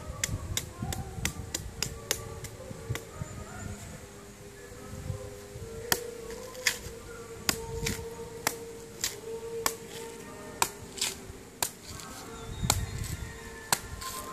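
Machete chopping the husk of a green coconut: a steady run of sharp chops, about one to two a second.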